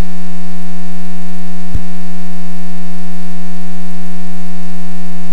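Steady electrical hum on the aircraft headset and radio audio feed, one unchanging low buzzing tone with a row of overtones, broken by a single short click a little under two seconds in.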